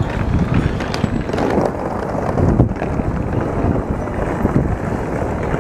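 Wind buffeting the microphone over a low, uneven rumble of street noise at a tram stop, while an AnsaldoBreda Sirio tram moves slowly up to the platform.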